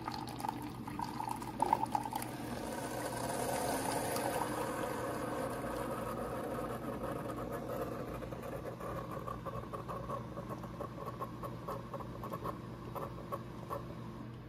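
Keurig K-Supreme Smart single-serve coffee maker brewing: a steady stream of hot coffee pouring into a mug, with the brewer running. It eases off near the end as the brew finishes.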